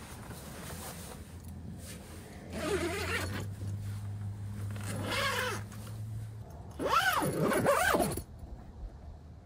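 A tent door zip being pulled shut in three strokes, its pitch swooping up and down with each pull; the last stroke, near the end, is the longest and loudest. A low steady hum sits underneath through the middle strokes.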